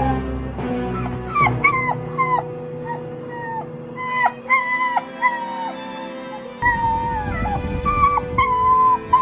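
Smooth dachshund crying and whining during a shampoo it hates: a run of short, high-pitched cries, many ending in a falling pitch, starting about a second in, over background music.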